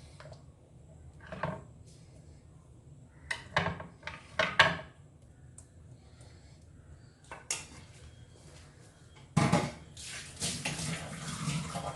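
A spoon clinking and tapping against a dish in a few separate knocks, then a louder knock followed by a couple of seconds of scraping near the end, as sauce is spooned over fish.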